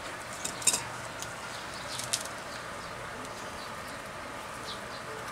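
Bonsai pruning shears snipping twigs and leaves of a red balete (Ficus virens) during a cutback: about five sharp clicks in the first two seconds or so, over a steady background hiss.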